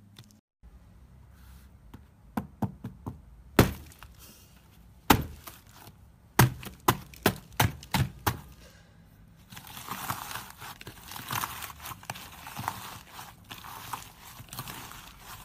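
About a dozen sharp knocks and clicks, then a dense, steady crackling crunch as hands press and knead a dried, crumbly crust of blue slime and break it apart.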